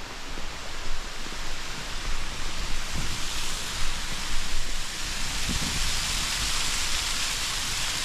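Steady rushing of a waterfall dropping into a rocky gorge, growing louder about three seconds in, with low rumbles of wind on the microphone.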